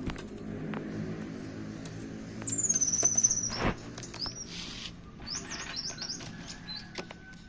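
Orange-headed thrush singing high, clear whistles: a long falling whistle about two and a half seconds in, then a quick run of short rising notes, with scattered light clicks between.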